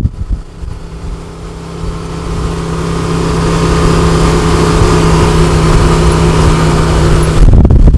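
Side-by-side UTV engine droning at a steady pitch while the machine drives along a dirt road, with a strong wind rush on the microphone. The drone swells over the first few seconds and then holds steady. Near the end it gives way abruptly to choppy wind buffeting.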